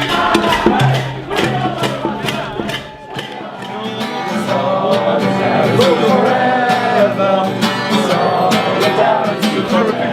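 Music: a song with guitar and a steady beat.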